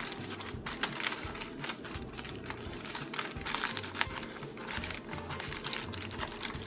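Aluminum foil crinkling in irregular crackles as hands fold and crimp it around a roast pork shoulder.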